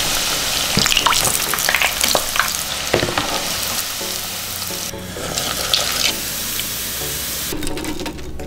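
Panko-breaded Spam strips deep-frying in hot oil: a steady, dense sizzle with scattered crackling pops. The sizzle drops out briefly about five seconds in and stops near the end.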